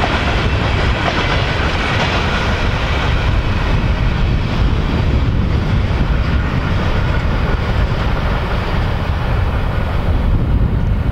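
A freight train of empty oil tank cars rolling away along the tracks, a loud, steady noise that keeps up without fading.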